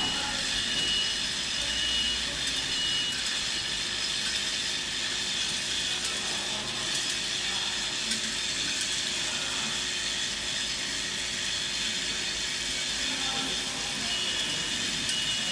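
Bottle conveyor and packaging-line machinery running, giving a steady mechanical clatter and hum. A short high-pitched tone pulses near the end.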